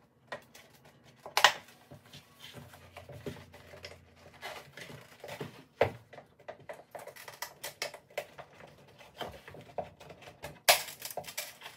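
A metal pry tool clicking and scraping around the rim of an oven-heated headlight as the lens is worked against its softened glue. Irregular small clicks and knocks, with a louder sharp knock about a second and a half in and another near the end.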